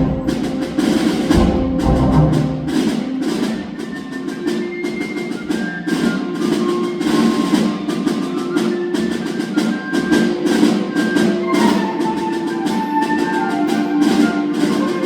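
Concert wind band playing, with sustained wind chords under a dense run of sharp percussion strokes.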